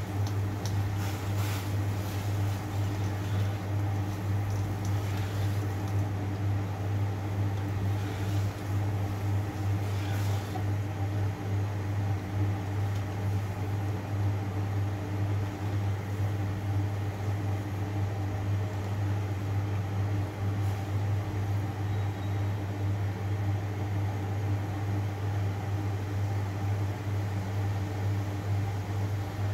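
A steady mechanical hum over water boiling in a stainless steel wok. In the first ten seconds a spatula stirring black fungus in the wok gives a few light scrapes and clicks.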